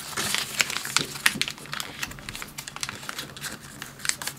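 A square of origami paper being folded and creased flat by hand, crinkling with many sharp little crackles as the folds are pressed down.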